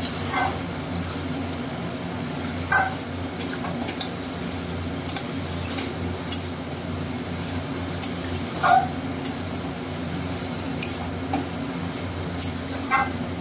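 Metal spatula scraping and clinking against an aluminium kadai as chicken pieces in thick masala are stirred and turned while being slow-fried (kosha). The clinks come irregularly, about one every second or so, over a steady low hum.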